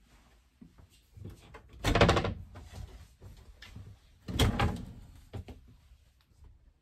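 Wooden closet door being handled and opened: two loud thuds with a short scrape each, about two and a half seconds apart, with a few faint knocks between.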